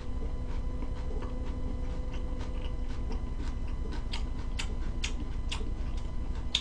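Close-miked eating sounds: soft, irregular clicks of chewing, then sharper clicks about four seconds in as a fork and knife cut food on a plastic breakfast tray, over a steady low hum.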